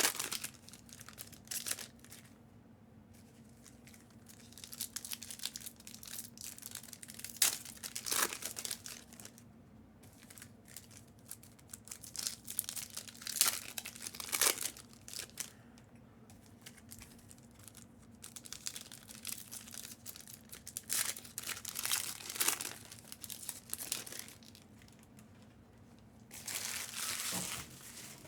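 Plastic wrapping of trading card boxes and packs being handled, crinkling and tearing in irregular bursts with short pauses between, over a faint steady hum.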